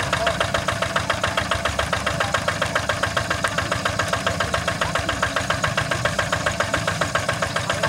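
Horizontal single-cylinder diesel engine of a walking hand tractor running steadily at low speed, a rapid even chugging of about eight beats a second.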